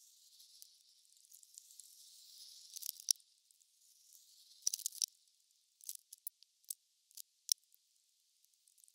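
Water drum being bedded into a dug hole among stones: faint scraping and rustling for about three seconds, then a string of sharp clicks and knocks, sounding thin and hissy.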